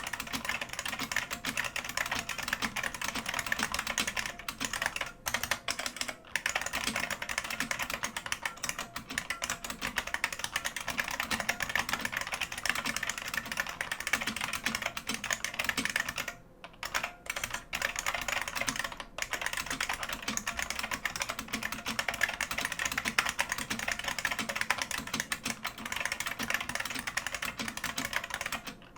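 Fast, continuous typing on a bolt-modded IBM Model M Space Saving Keyboard with buckling-spring switches, a dense stream of sharp key clicks. The typing breaks off briefly a few times: around 5 seconds in, twice around the middle, and just before the end.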